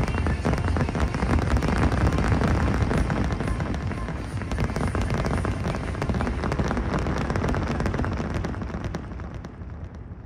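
Aerial fireworks: a dense barrage of shells bursting at once, a thick run of bangs and crackles over a low rumble, thinning out and fading near the end.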